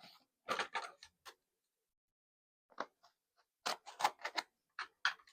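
Short clicks and rustles of packaging being opened and handled by hand, coming in three bunches with a quiet pause about two seconds in.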